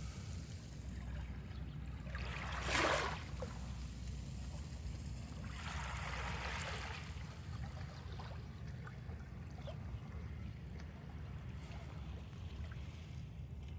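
Small waves lapping on a sandy shore: one short wash about three seconds in and a longer, softer one around six to seven seconds, over a steady low rumble.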